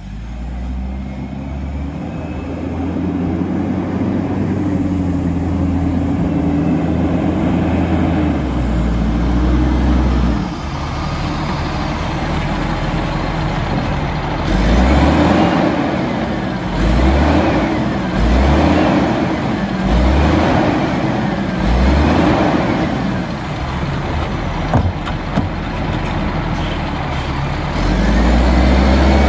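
Diesel engine of an automated side-loader garbage truck running as it pulls up, then revving up and down five or six times, about a second and a half apart, as the hydraulic arm lifts and dumps a cart. A few sharp knocks follow as the cart is set back down.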